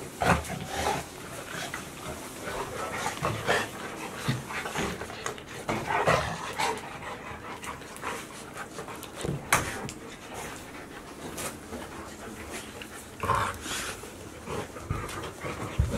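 Golden retriever puppies and an adult golden retriever playing: panting, with many quick taps of paws and claws on a hard floor and a few brief whimpers.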